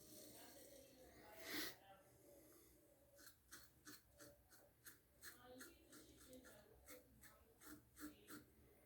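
Faint short scrapes of a razor blade cutting stubble on a pass against the grain, in quick strokes about two or three a second, with one louder brief sound about one and a half seconds in.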